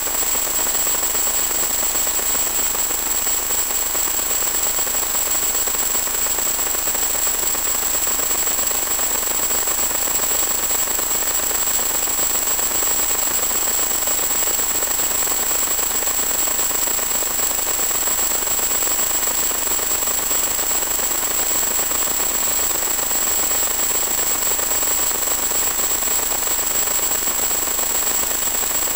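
Steady static hiss with a thin high whine over it, unchanged throughout and not following the plane's motor or speed. This is the noise of the empty audio channel of an analog 1.2 GHz FPV video link.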